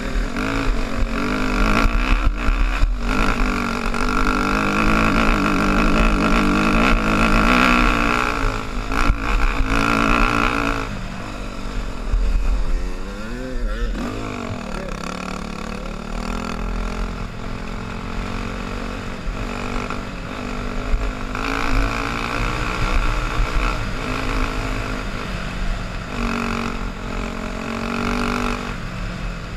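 Yamaha dirt bike engine running hard on a trail ride, revved high for the first ten seconds or so. Around twelve seconds in the revs drop and swoop back up, then run lower and steadier before climbing again about twenty seconds in.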